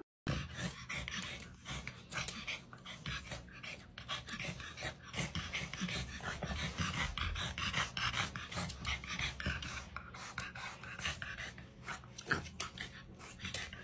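A dog panting, a long run of quick, irregular breaths.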